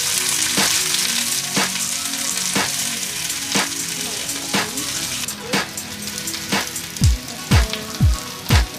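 Sliced onions sizzling in hot oil in a wok while a wooden spatula stirs them, with a steady hiss that slowly fades. Background music with a regular beat plays throughout, and its deep bass thumps come in about twice a second near the end.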